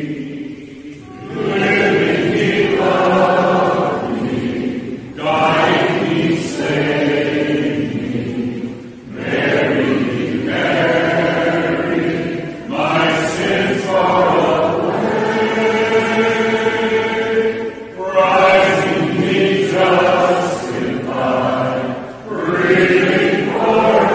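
Mixed choir singing a hymn unaccompanied, in phrases of about four seconds with short breaks between them.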